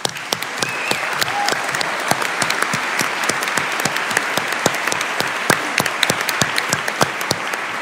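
Audience applauding: many people clapping at once, starting abruptly and keeping up a steady level.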